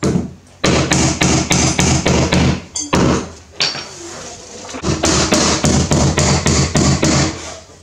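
Claw hammer driving nails into a plywood kickboard, in two quick runs of blows about four a second, with a short pause between them.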